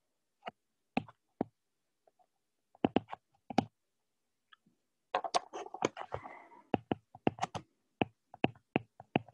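Stylus tip tapping and scratching on an iPad's glass screen while handwriting an equation: a run of sharp, irregular clicks, sparse at first and coming thicker from about five seconds in.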